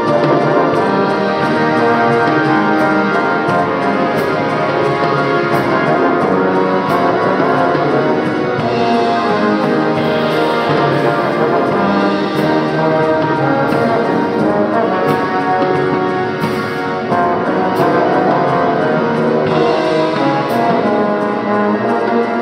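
Live brass-and-drums music: trombone and tuba playing over a drum kit, with sharp cymbal hits scattered through it.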